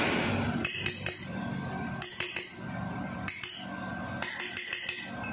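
Repeated metal-on-metal taps driving a new motorcycle fork seal down into its fork leg. The sharp, ringing clinks come in short groups about a second apart, with the fastest run of strikes near the end.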